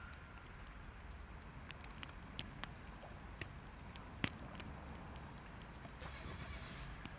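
Faint rail-yard ambience: a steady low rumble with scattered light ticks, one sharp click about four seconds in, and a soft hiss near the end.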